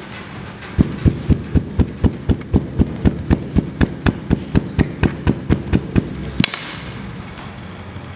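Bread dough being struck by hand in a quick even rhythm, about four low thumps a second for some five seconds, followed by one sharper knock.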